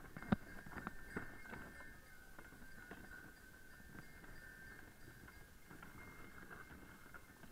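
Horse walking in harness on a packed-snow road, with a bell ringing steadily and jingling as it goes. There are a few sharp hoof and harness clicks in the first couple of seconds.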